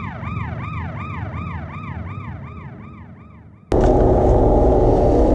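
Siren-like electronic sound effect: a wail sweeping up and down about three times a second, fading away, then cut off abruptly by a louder, steady room hum.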